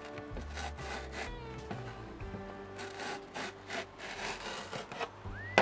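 Kitchen knife slicing lengthwise down a leek on a wooden tray in a series of short rasping strokes, over background music.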